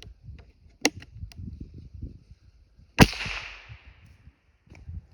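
A single .22 rifle shot about three seconds in, a sharp crack with its echo trailing off for about a second. A smaller sharp click comes just before the first second.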